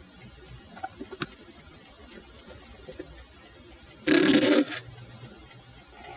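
Motor-driven toothed jawbone of a kinetic steel-and-bone sculpture scraping its teeth across a bone: a few light clicks about a second in, then one short harsh rasp of about half a second some four seconds in.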